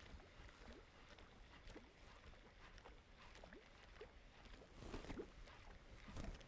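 Near silence: faint water lapping around a small fishing boat, with a couple of soft knocks about five seconds in.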